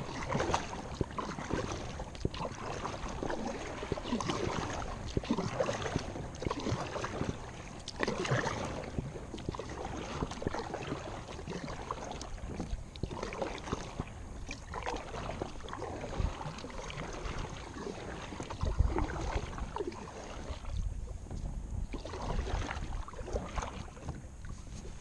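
Kayak paddle strokes: the blades dip and pull through calm water again and again at a steady pace, with splashing and dripping off the blades.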